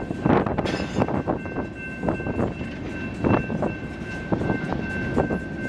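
Freight train of boxcars and hoppers rolling past in reverse, shoved by the locomotive, its wheels knocking and clacking irregularly over the rail joints with a low rumble. A thin steady high squeal runs underneath.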